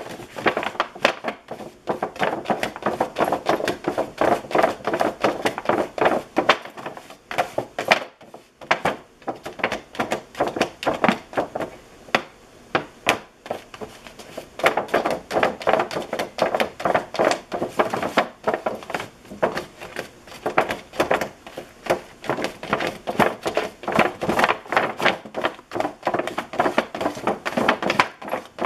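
A cat pawing and scratching rapidly at a plastic sheet and the bottom of the door behind it: a fast run of scratches and knocks, several a second, with a couple of brief lulls. It is a demand to be let out.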